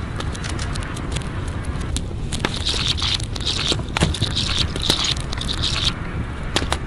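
Wood fire crackling, with sharp pops scattered irregularly over a low steady rumble; a hiss joins in from about two and a half seconds to six seconds.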